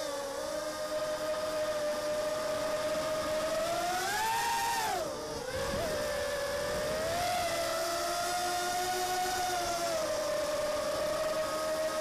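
The six 1306 3100kv brushless motors and props of an Armattan Mini Hex hexacopter whining steadily, heard from the camera mounted on the quad. About four seconds in the pitch rises with the throttle, then drops sharply and climbs back.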